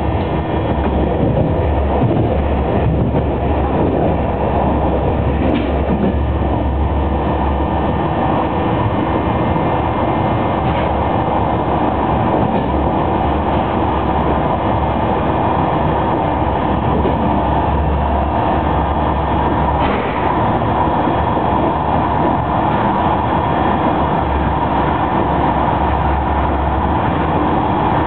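Passenger train running at speed, heard from inside the coach: a steady rolling rumble of wheels on rails with a few faint clicks.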